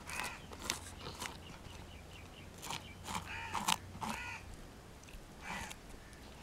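Scales of a snakehead (murrel) fish being scraped off against a curved sickle blade in several short, irregular strokes, with birds calling in the background.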